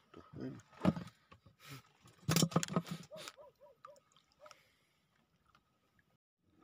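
Water splashing and sloshing around feet wading through shallow seawater, with the loudest splashes about two to three seconds in. A faint repeated chirping comes and goes.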